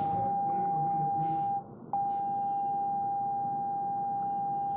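Redmi Note 8's loudspeaker playing MIUI's Clear speaker tone, a steady single beep meant to shake dust out of a speaker whose sound has gone low. The tone breaks off about a second and a half in for a moment, then starts again with a click as the next round begins.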